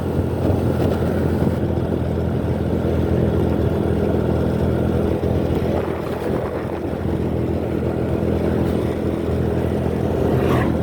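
Motorcycle being ridden along a road: its engine running at a steady speed with road and traffic noise.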